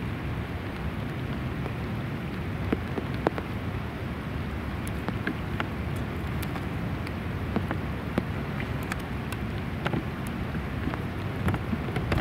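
Steady rain falling on river water: a constant hiss with many small, sharp drop ticks scattered through it.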